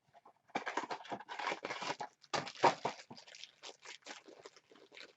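Blind-box toy packaging being torn open and crinkled by hand. A run of dense, irregular crackling tears comes first, then lighter scattered crinkles.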